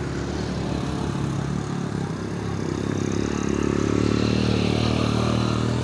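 Excavator engine running steadily, growing louder about halfway through.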